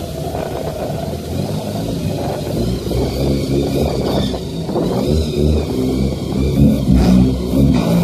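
13B multi-side-port rotary engine breathing through a 48 mm carburetor, revving up and down under load as the car pulls out; its note rises and falls repeatedly and grows louder in the second half.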